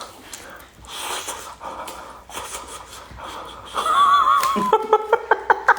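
A dog panting, then giving a high, wavering whine and a quick run of short yips near the end, impatient for food it has been kept from.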